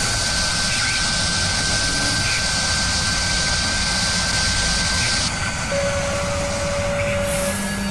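Machining sound effect of a spindle drilling metal: a steady rushing noise with a thin high whine. The rush and whine drop away about five seconds in, leaving a lower steady tone.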